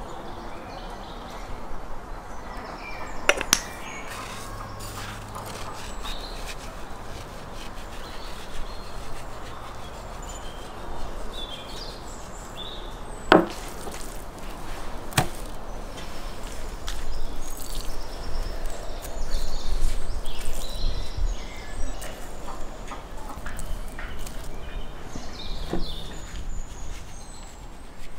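Outdoor background noise with faint bird chirps, while raw beef slices are handled and seasoned on a wooden table. A few sharp knocks stand out, the loudest about halfway through.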